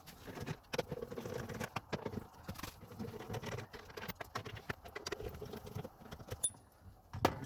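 Irregular clicks and knocks of hand tools and fingers working on plastic dash trim while screws behind it are taken out, with one sharper click near the end.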